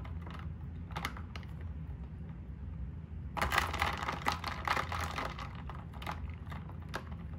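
Ice cubes and a die-cast toy car knocking against each other and against a plastic tub as the car is moved through ice water, giving a run of light clicks with a little sloshing. The clicking gets busier about three and a half seconds in.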